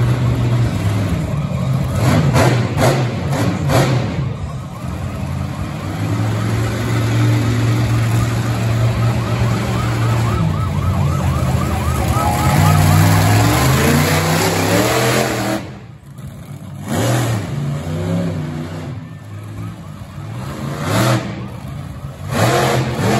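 Monster truck engine running and revving, climbing in pitch a little past halfway, then dropping back and quieter after about 16 seconds. A warbling wail, like a siren, sounds around the middle.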